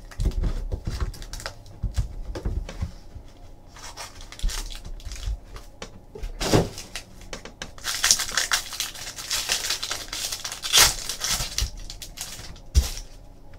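Hands tearing open and crinkling a plastic trading-card pack wrapper, the crinkling loudest for a few seconds about two-thirds of the way through, among light taps and clicks from the card box being handled.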